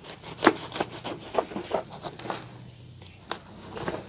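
A knife sawing through the dense, soil-packed root ball of a bird's nest fern to divide it: a dozen or so short, irregular scraping strokes.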